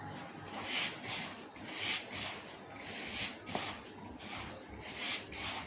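Hands kneading damp semolina and maida dough: repeated soft rubbing, squishing strokes, roughly one a second.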